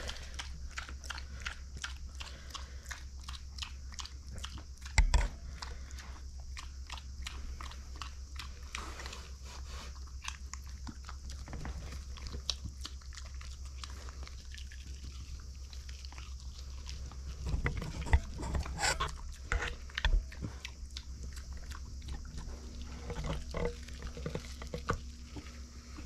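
Micro pig chewing and crunching corn, with many small crisp clicks as it eats and noses along the blanket. There is a louder knock about five seconds in and a cluster of louder knocks and rustles about two-thirds of the way through.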